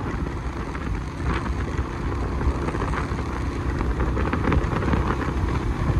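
Steady rush of wind over the microphone and a low rumble from a moving vehicle on the road.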